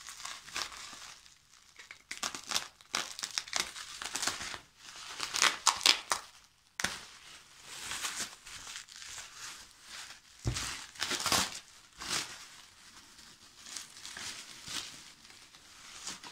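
Plastic bubble wrap crinkling and rustling as hands handle and pull open a bubble-wrapped parcel, in irregular bursts, loudest about five to six seconds in and again around eleven seconds.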